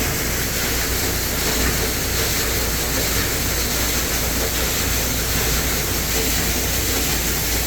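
Commercial hood-type dishwasher running its wash cycle: a steady rush of spraying water inside the closed cabinet over a low, even hum from the wash pump.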